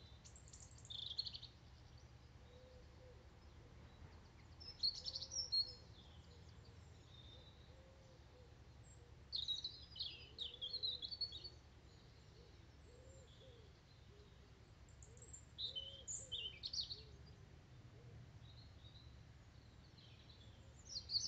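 European robin singing short, high phrases with pauses of a few seconds between them, over a faint, steady low rumble.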